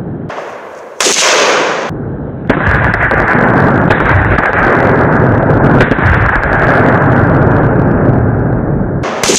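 Rifle gunfire and exploding reactive targets going off: a loud blast about a second in, then from about two and a half seconds a long stretch of continuous loud shooting and blasts, broken by abrupt cuts.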